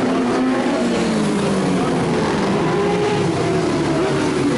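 Racing motorcycle engines running hard at high revs as several bikes pass on the street circuit, the engine pitch rising and falling as they accelerate and change gear.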